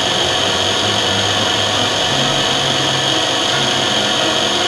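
Lens drilling machine's 17,000 rpm spindle motor spinning a milling cutter with a steady high whine as it mills into an eyeglass lens.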